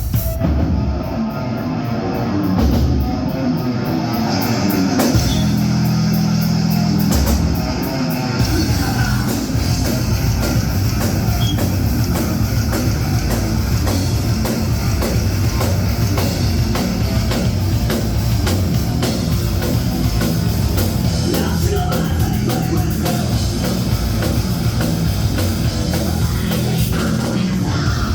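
Rock band playing live: electric guitar, bass and drum kit. A held low chord rings about five seconds in, and after about eight seconds the full band settles into a steady, driving groove.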